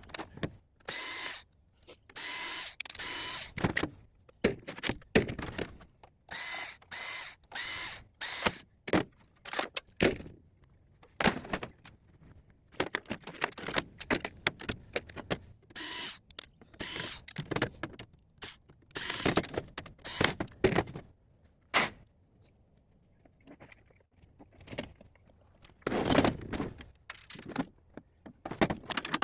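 Irregular metallic clanks, knocks and rattles, with a few longer scraping or jangling stretches of about a second, from pieces of scrap metal being handled.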